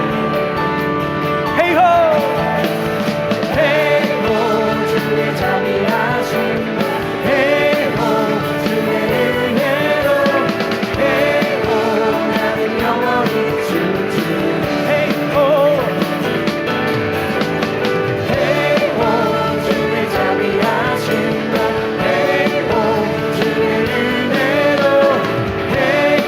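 Contemporary Christian worship band music playing steadily, with a melody line that bends up and down over a full band.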